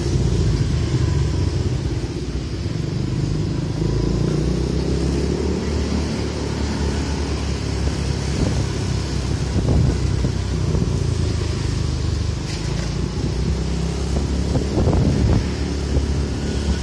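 Steady motor rumble of a slow ride among motorbike traffic on a narrow street, with wind on the microphone and a few scooters passing.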